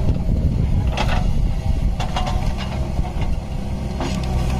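Diesel engine of a JCB 3DX backhoe loader running steadily while it works its bucket, alongside an idling John Deere tractor, with a constant low drone. A few short noisy bursts come about one, two and four seconds in.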